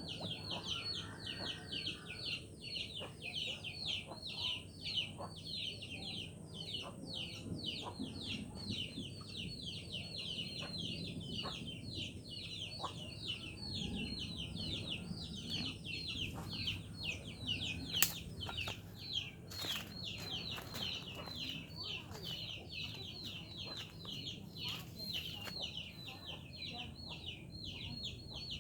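Chickens clucking low under a steady, rapid train of high chirps, about three or four a second, from an unseen animal. A single sharp click sounds about two-thirds of the way through.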